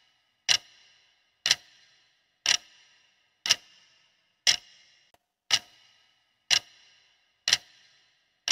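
Clock ticking sound effect marking the quiz's answer countdown: sharp, evenly spaced ticks, one each second.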